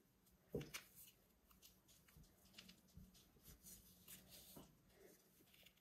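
Faint rustling and rubbing of thick braided macramé rope as it is handled and pulled through a wrapping knot by hand, with scattered soft ticks and one brief low sound about half a second in.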